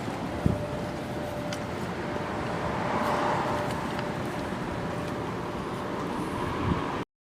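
Steady outdoor background noise with a faint steady hum and two knocks, one about half a second in and one near the end, cutting off suddenly to silence.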